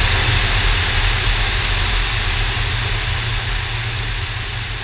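Steady drone of a Cessna T310's twin piston engines and rushing airflow heard inside the cabin in flight, a low rumble under a broad hiss, fading out gradually.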